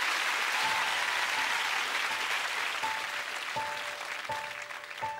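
Studio audience applauding, the applause dying away over several seconds as a soft instrumental introduction begins: a single note repeated about every three-quarters of a second, with a lower note joining it in the last couple of seconds.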